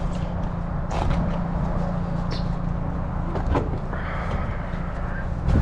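Steady low hum of an idling vehicle engine, with a few short clicks and knocks of tools being handled.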